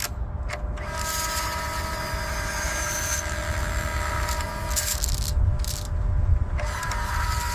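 Construction machinery running: a steady low engine rumble with a steady whine above it.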